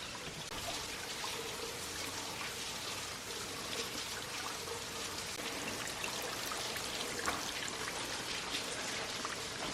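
Spring-fed waterfall splashing steadily, with scattered drips and spatters.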